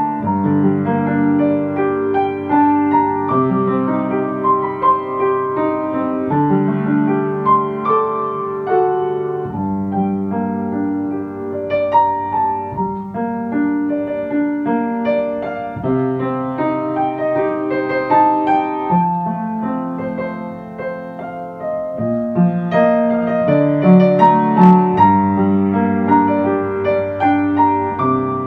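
Slow piano music: a melody of single notes over low bass notes that are held and change every few seconds.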